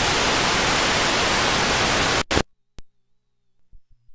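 Loud video static hiss, like an untuned TV or VHS tape, that cuts off abruptly about two seconds in. A sharp click follows, then a faint low hum with a few soft clicks near the end.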